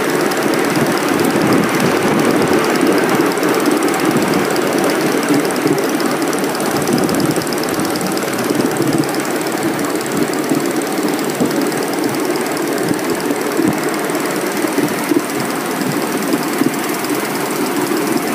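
Miniature live-steam locomotive running under way, double-headed: a steady rapid chuffing from the exhaust, with the running gear and wheels rattling along the rails.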